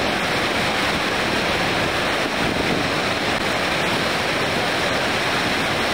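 Cold lahar flood, a torrent of volcanic mud and water, rushing down a river channel as a loud, steady roar of churning water.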